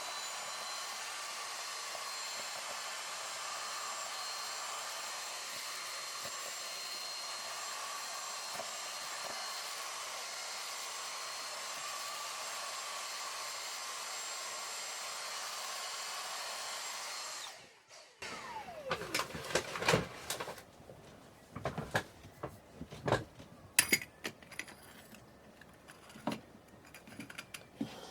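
Hot air gun blowing steadily with a faint high whine, switched off after about seventeen seconds, then light clicks and knocks of small parts being handled.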